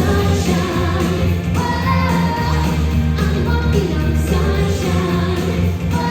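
Upbeat pop song with singing over a steady bass beat, played loud through a live show's sound system.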